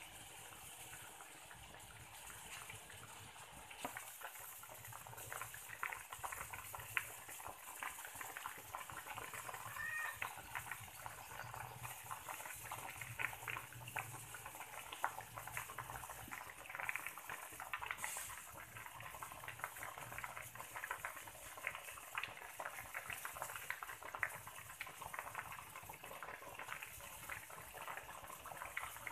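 Fish simmering in water in a metal pan, a faint steady crackle and popping of bubbles. A cat meows briefly about ten seconds in.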